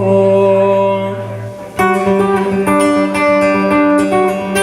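Live band music between vocal lines: an acoustic guitar strumming, a held chord fading out, then the strumming picking up again about two seconds in.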